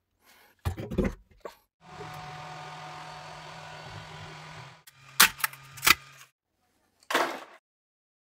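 Sharp clicks and knocks, then an Ender 3D printer running with a steady hum for about three seconds, followed by two louder sharp clicks and a short rush of noise near the end.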